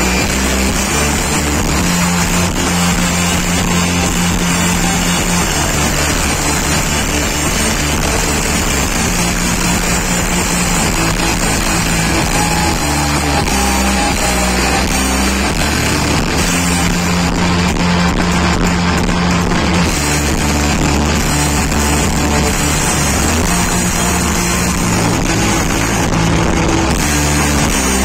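Live rock band playing loud: electric guitars over bass guitar and a drum kit.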